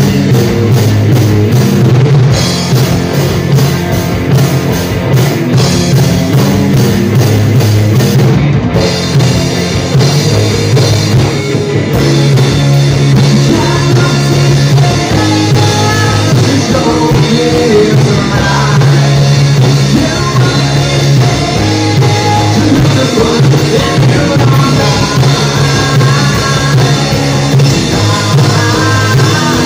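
Live rock band playing loud: drum kit, electric guitars and bass guitar.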